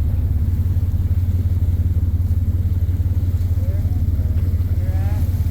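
Tour boat's engine running with a steady low drone and a fast, even pulse.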